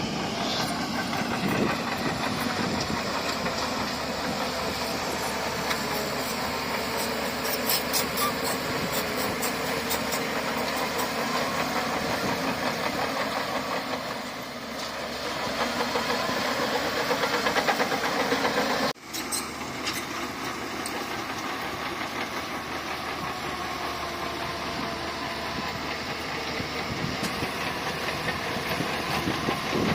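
Heavy bulldozer's diesel engine running steadily, with a sudden brief drop-out about two-thirds of the way through.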